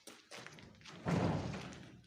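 A heavy thud on timber about a second in, dying away over most of a second, with a fainter knock shortly before it.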